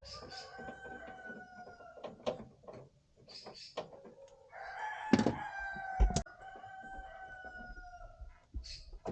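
Rooster crowing: two long drawn-out crows, one near the start and a louder one from about halfway through. A few sharp knocks are heard too, the loudest about six seconds in.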